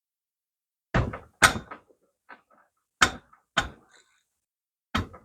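Sharp knocks from tools working on the Moto Guzzi's cylinder head nuts, five in about four seconds, mostly in pairs.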